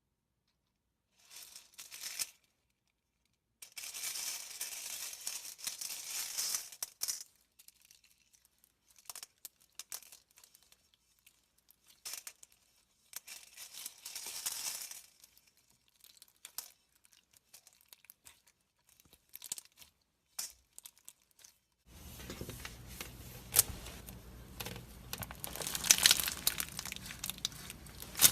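Slime being squeezed and stretched by hand, crackling and crinkling in separate spells of one to three seconds with quiet gaps. From about 22 seconds in the crackling runs on without a break over a low steady hum.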